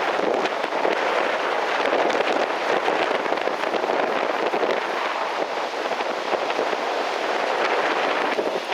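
Strong onshore wind and breaking surf: a steady, crackly rush of noise, the wind buffeting the microphone.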